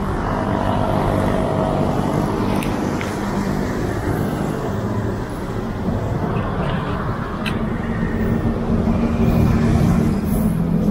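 Steady city road traffic: a constant wash of passing vehicle engines and tyres, with an engine hum growing louder near the end.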